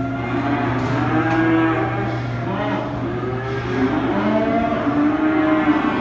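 A herd of cattle mooing and bawling, many calls overlapping, over a steady low hum that fades about two-thirds of the way through.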